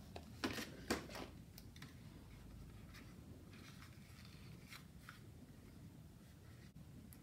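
Faint handling noise from hard plastic Micronauts Battle Cruiser toy parts and a paper sticker sheet. There are a few sharp clicks and rustles, the loudest about half a second and a second in, then soft rustling and scraping as a sticker is pressed onto a plastic piece.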